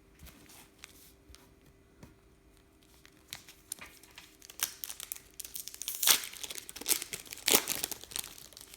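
Foil trading-card pack wrapper being torn open and crinkled by hand. A few light clicks come first, then the crackling and tearing start about three seconds in, with the loudest rips near the middle and toward the end.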